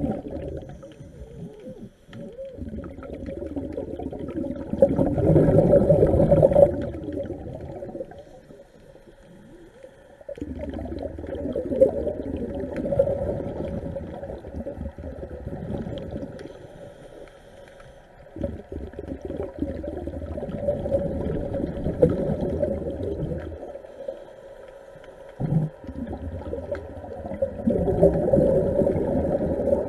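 Underwater sound of a diver's breathing regulator, with exhaled bubbles coming in surges several seconds apart.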